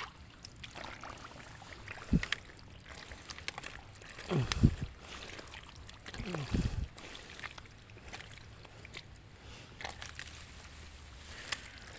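Splashing and sloshing in shallow water, with a dull thud about two seconds in and two louder, lower bursts of sliding pitch about four and a half and six and a half seconds in.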